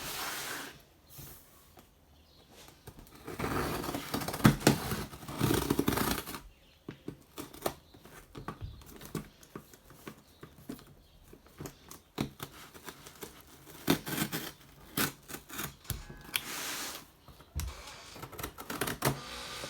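Cardboard mystery box being opened by hand: a few seconds of scraping and tearing of tape and cardboard, then scattered clicks and taps as the packaging is handled, with another short scrape near the end.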